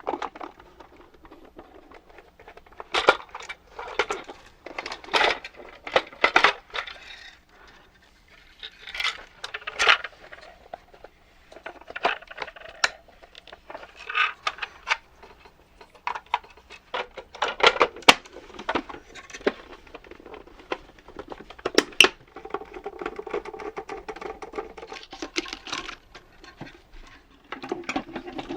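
Small hard parts of the Omnibot 2000 robot being handled while it is taken apart: scattered clicks, taps and light knocks, with a steadier stretch carrying a low tone for a few seconds near the end.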